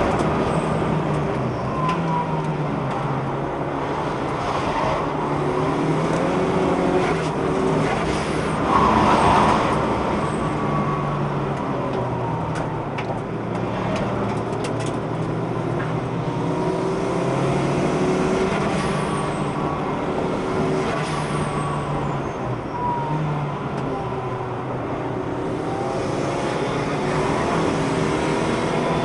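Car engine running hard around a race circuit on slick tyres, its revs rising and falling over and over as it accelerates and slows, with road noise throughout.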